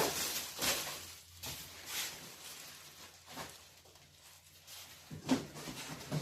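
Parcel packaging being handled and opened by hand: irregular rustling and crinkling, with one sharper knock near the end.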